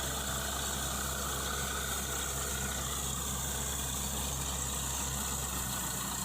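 Borewell drilling rig's engine running steadily at a low, even level with a low hum.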